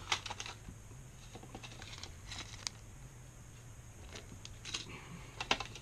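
Scattered light clicks and crinkling from a clear plastic hook case and paper hook packets being handled and sorted.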